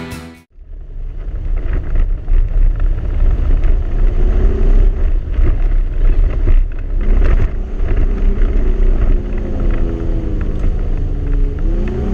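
Toyota Tacoma pickup's engine running as the truck drives over sand, heard from inside the cab: a deep rumble with engine tones that drift up and down. Near the end the engine revs up as the truck climbs a dune.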